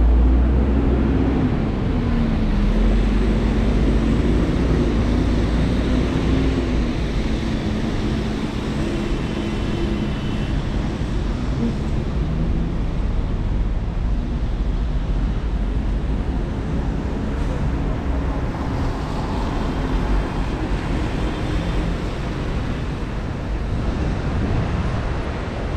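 City street traffic on a wet road: vehicle engines humming, rising and falling in pitch, over a steady wash of tyre and road noise, with a deep rumble in the first couple of seconds.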